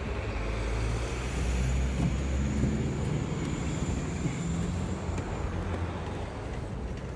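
Steady low outdoor background rumble, like road traffic, with a faint high whine through the first few seconds.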